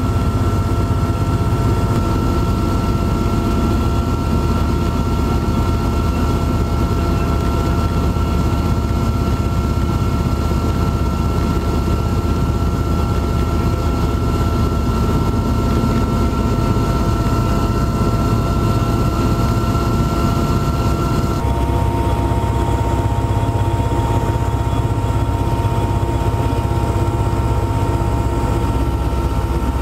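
Steady drone of an aircraft's engine recorded on board, a deep rumble with a high whine over it. About two-thirds of the way through the sound changes suddenly, the whine dropping to a lower pitch.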